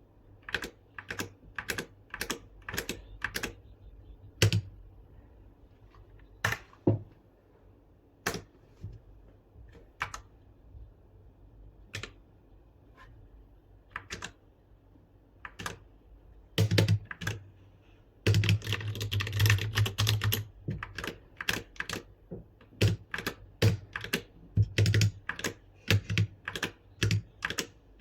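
MK-Star61 mechanical keyboard being typed on, key by key. The keystrokes come steadily at first, thin out to single presses in the middle, then break into a fast dense flurry about two thirds of the way in, and settle back to a steady run of keystrokes.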